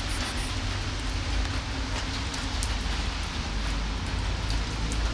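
Steady rain falling, with scattered drops ticking close by over a low rumble.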